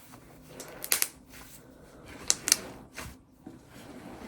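Homemade dough slime being kneaded and squeezed by hand for ASMR, giving a few sharp wet clicks and pops: one about a second in, two close together past the middle, another soon after.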